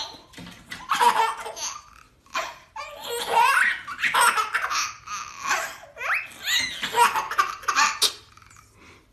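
A baby laughing hard in repeated bursts of belly laughter.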